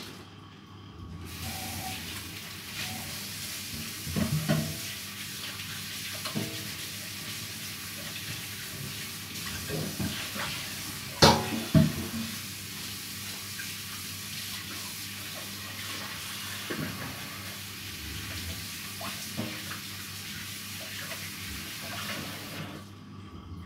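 Kitchen sink tap running steadily while hands are washed under it, starting about a second in and shut off near the end. A couple of sharp knocks sound just past the middle.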